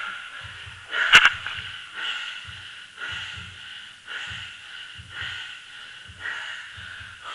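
Rhythmic swishing with soft paired thumps about once a second from inside an inflatable water zorb as it is stepped and rolled along, with one sharp knock about a second in.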